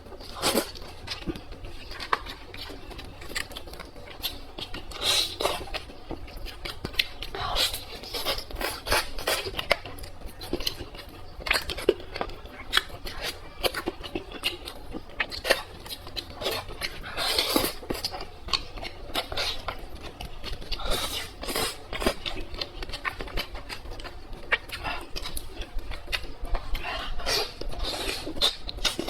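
Close-miked chewing and mouth sounds of someone eating: dense, irregular small clicks and crackles, with a few louder smacks.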